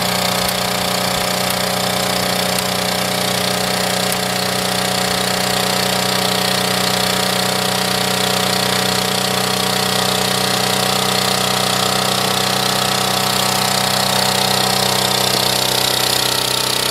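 Honda E40 portable generator's small engine running steadily under light load, a continuous even drone.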